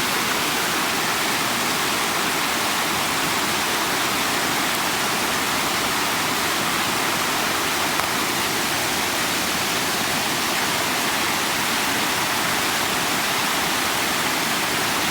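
Storm-swollen creek in flood, its water rushing in a loud, steady roar.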